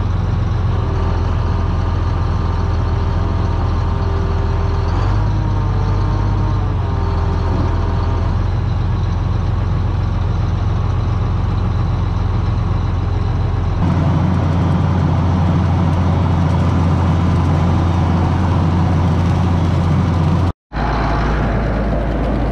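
Farm tractor's diesel engine running steadily while pulling a brush hog rotary mower. The sound changes character about two-thirds of the way through and cuts out for a split second near the end.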